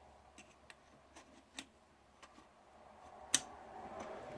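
Light clicks and ticks of small parts being handled while a ribbon cable is worked onto a DJI Phantom 3 Pro camera gimbal, about half a dozen faint ones and then one sharp click a little over three seconds in, as the cable goes into place.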